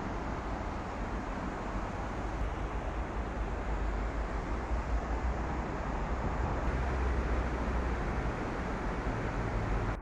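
Steady city street noise: a low rumble under an even hiss, with no single event standing out.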